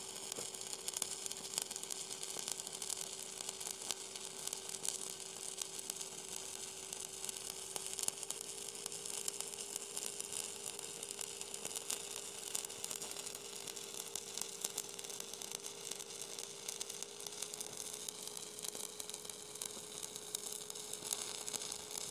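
Stick-welding arc crackling and sizzling steadily as a coated electrode rod burns a bead onto a steel wear plate, with a steady hum underneath.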